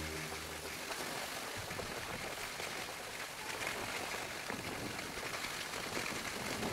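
Steady, fairly quiet hiss of sliding down a packed-snow track.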